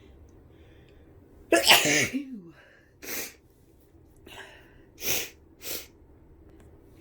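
A person sneezes once, loudly, about a second and a half in, the voice sliding down in pitch at the end. Three short, sharp breaths follow.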